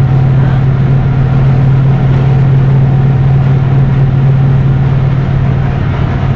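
Volkswagen Volksbus 17-210 city bus running along the road, heard from inside the cabin: a steady engine drone with a constant low hum under road noise, holding the same pitch throughout.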